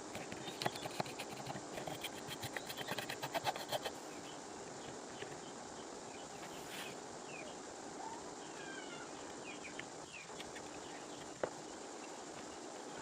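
A quick run of sharp clicks or taps for about four seconds, then outdoor background sound with birds chirping now and then and one more click near the end.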